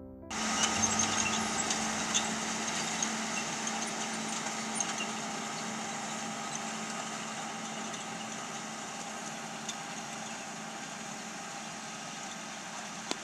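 Zetor Crystal 170 HD tractor's diesel engine running steadily as it pulls a row-crop cultivator, with scattered light clicks. It starts abruptly just after the start and slowly fades as the tractor moves away.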